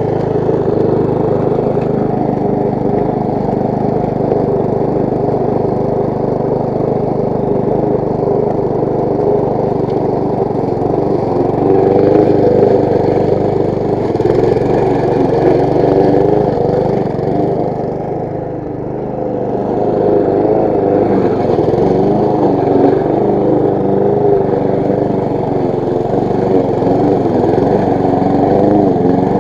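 Petrol walk-behind rotary lawn mower with a Briggs & Stratton single-cylinder four-stroke engine, running steadily under load while cutting grass. The sound dips briefly a little past halfway, then picks back up.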